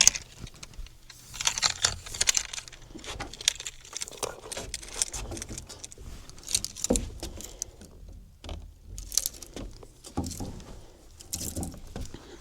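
Irregular clicking, rattling and patter while a feisty hooked mackerel is reeled in and landed.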